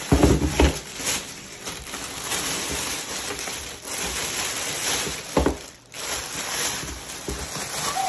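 Thin plastic bag rustling and crinkling as it is worked off a plastic folding washing machine. There is a short thump about five seconds in.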